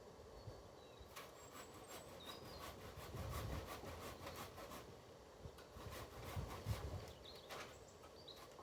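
Hand saw cutting through a tree branch in two runs of repeated strokes, faint.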